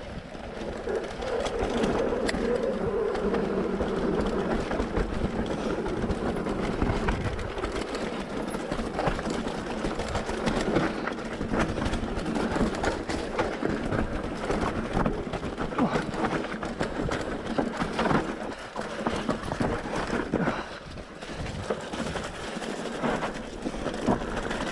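Mountain bike rattling over a rough, rocky and muddy track: tyres crunching on loose stones, with frequent sharp knocks from the chain and frame as the bike is shaken about. The rumble eases for a moment a little before the end.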